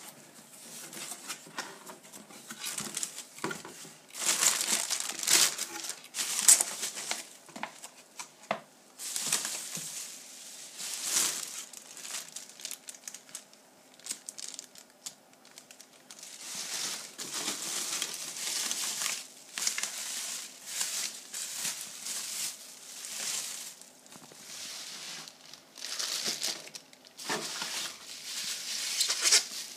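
Plastic packaging and padding crinkling and cardboard box flaps rustling as hands unpack a box, in irregular bursts.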